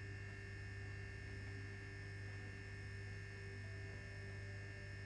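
Steady low electrical hum with a few faint, steady higher tones above it, and no other sound.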